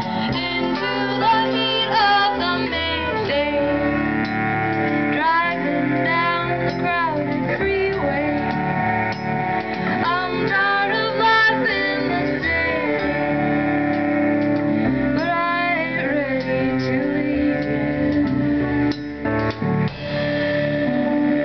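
Live small-band music: a flute plays a melody full of quick runs and trills over bowed cello, with drum kit and keyboard underneath.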